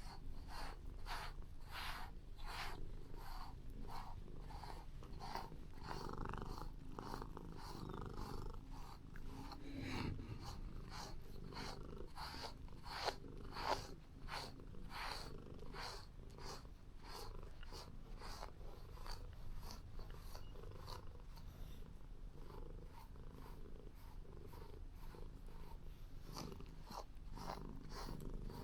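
Calico cat purring close up, a contented purr pulsing about twice a second. Two brief sharper sounds come about halfway through.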